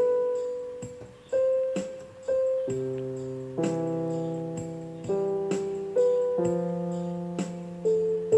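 Background piano music: slow single notes and chords, each struck and left to ring out.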